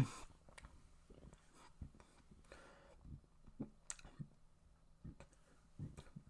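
A person's faint mouth noises: scattered small clicks and smacks, with a brief low sound at the very start and a few soft low ones later on.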